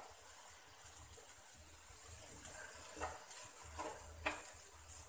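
Scrambled egg and tomato mixture sizzling faintly in a frying pan as a wooden spatula stirs it, with a few light taps and scrapes of the spatula against the pan in the second half.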